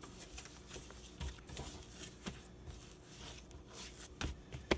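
Hands working a wet bread dough on a floured countertop, tucking it under and smoothing it. The sound is faint and uneven: soft rubbing and scraping with a few light knocks against the counter.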